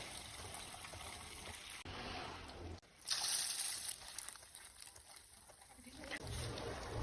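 Hot oil sizzling, with a sudden louder hiss about three seconds in that dies down over the next few seconds.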